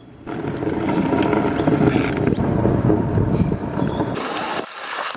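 Kick scooter wheels rolling over a wet concrete footpath: a steady rumble with small clicks from the pavement, with wind on the microphone. A brief loud hiss comes about four seconds in.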